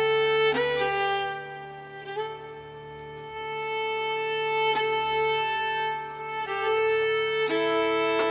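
Background music: a slow melody of long held bowed-string notes, a violin, changing pitch every second or two.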